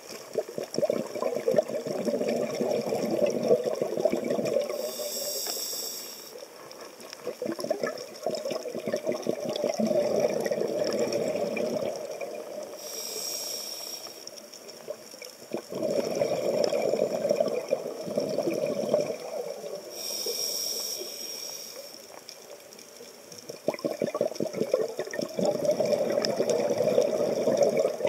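Underwater sound of a scuba diver breathing on a regulator: three short hisses of inhaling through the demand valve, each followed by about four seconds of exhaled bubbles gurgling out of the exhaust, in a slow, even rhythm.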